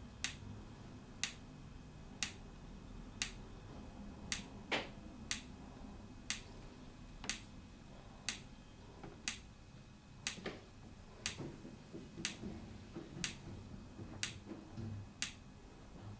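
Kima microfluidic pump clicking about once a second, each click one pulse of culture media pushed through the tubing during its wash cycle.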